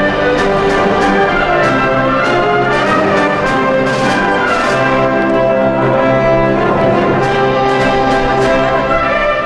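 Background music: an orchestral piece led by brass, with sustained chords and percussion hits.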